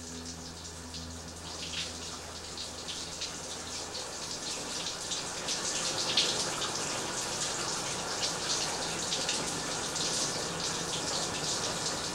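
Shower water running and spattering steadily, getting somewhat louder toward the middle. A low steady hum underneath fades out about four seconds in.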